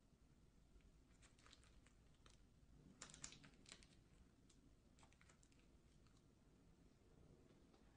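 Near silence with faint scattered clicks and rustles, a small cluster of them about three seconds in.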